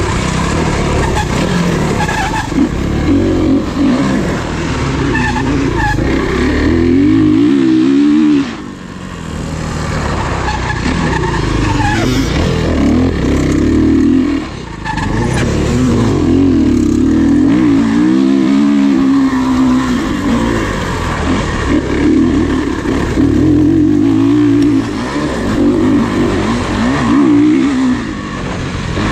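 Off-road racing engine revving hard up and down as it is ridden through the course, with the throttle shut off briefly about eight, fourteen and twenty-eight seconds in.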